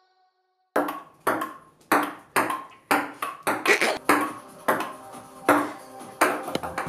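Table-tennis rally: the ball clicking off paddles and the table, about two hits a second, starting just under a second in.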